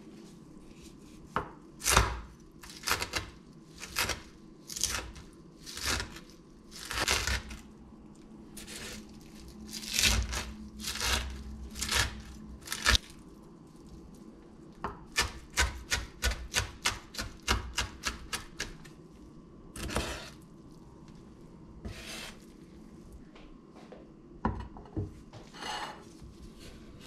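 Chef's knife chopping through tuna filling on a wooden cutting board: separate chops about a second apart, then a quick run of several chops a second in the middle, then a few more scattered strokes.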